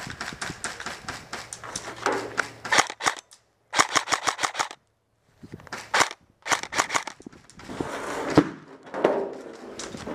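KWA SR10 airsoft rifle firing in rapid bursts: quick runs of sharp clacks several a second, broken by short pauses.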